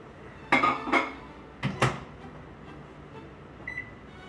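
Microwave oven being shut and set: four sharp knocks and clicks from the door and controls in the first two seconds, then one high keypad beep near the end.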